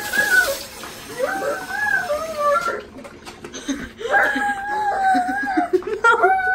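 A child's high-pitched voice making long, wavering wordless squeals in several stretches with short breaks, loud and playful rather than words.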